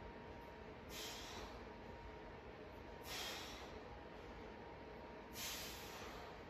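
A man's faint, forceful breaths: three short exhales about two seconds apart, one on each lift of a single-leg glute bridge.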